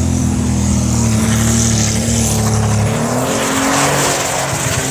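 Tractor-pull tractor's engine running flat out under load as it drags the weight sled, a steady engine note that rises a little in pitch. About three seconds in the sound switches abruptly to a harsher, noisier engine sound from another pulling tractor.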